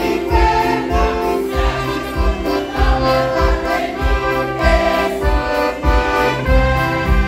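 Women's choir singing a hymn in several parts, accompanied by accordion and trumpet, over a low beat about twice a second.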